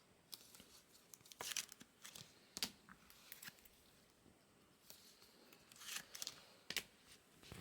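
Foil trading-card pack wrappers crinkling and tearing open, with faint scattered crackles as the cards are handled.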